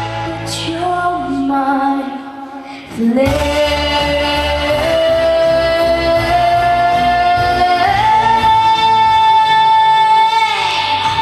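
Female solo singer performing a song over backing music. After a brief quieter moment, her voice climbs in steps to a long held high note that ends just before the close.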